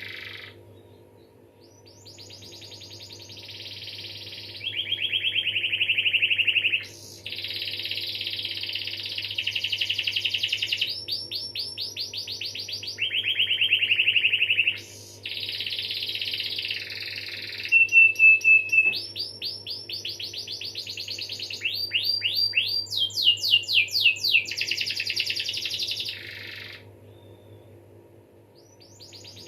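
Domestic canary singing a long, continuous song of rapid trills and rolls, one phrase after another. It pauses briefly about a second in and again near the end.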